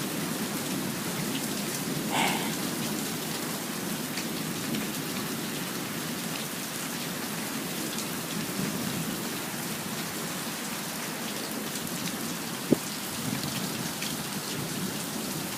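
Steady heavy rain in a thunderstorm, an even hiss of drops hitting the ground and nearby surfaces. A short higher-pitched sound stands out about two seconds in, and there is a single sharp click near the end.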